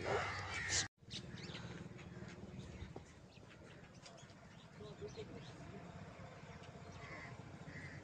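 Crows cawing faintly, with other bird calls.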